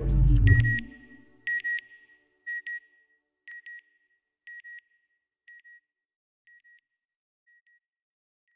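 Logo sound effect: a deep boom, then a high electronic double beep like a sonar ping, repeating about once a second and fading away like an echo.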